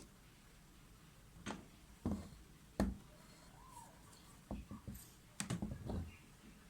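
Scattered light clicks and taps from handling a small LED circuit board and bench tools: three single ones, then a quick cluster about two-thirds of the way through.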